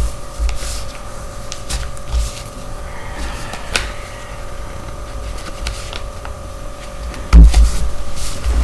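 A sheet of paper being handled, folded and creased by hand, with scattered clicks, rustles and dull knocks, and a louder thump about seven seconds in. A steady hum runs underneath.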